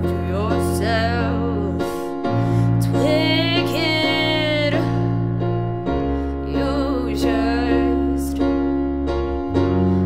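A woman sings an original jazz-blues song over sustained grand piano chords, holding one long wavering note about three seconds in. A bowed double bass underneath holds long low notes that change about every four seconds.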